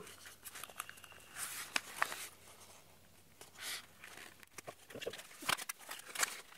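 Paper flower wrapping rustling and crinkling while artificial flower stems are handled and pulled apart by hand, with a few small sharp clicks.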